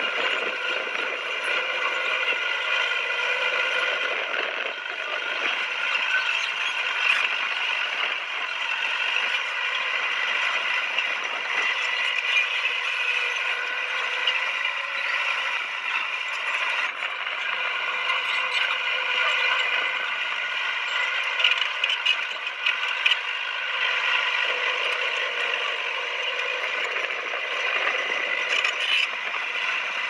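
Crawler bulldozer working: a steady engine note with scattered clicks and clanks from its steel tracks and running gear.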